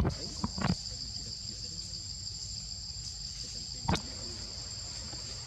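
Insects droning steadily at a high pitch, an even buzz that holds without a break. A short knock comes just under a second in and a sharp click near four seconds.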